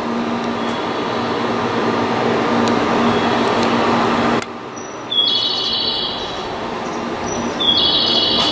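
JR West 521 series electric train moving past along a platform: wheels rolling with a steady motor hum. There is a sudden drop about halfway through, and two short high-pitched chirps in the second half.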